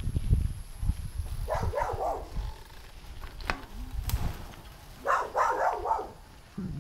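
Two bursts of barking, about a second and a half in and again around five seconds in, over a low wind rumble on the microphone. Two sharp knocks from the bicycle come in the middle.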